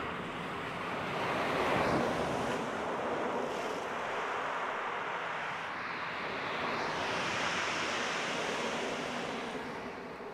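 Sea waves breaking and washing on the beach, swelling twice, about two seconds in and again near the end.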